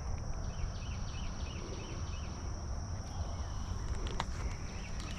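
Outdoor pondside ambience: a steady high-pitched insect drone, with two runs of short chirps repeated about four times a second, over a low wind rumble on the microphone. A couple of sharp clicks come about four seconds in.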